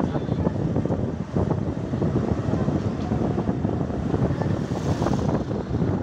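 Road traffic noise: vehicle engines and tyres rumbling, with wind buffeting the microphone.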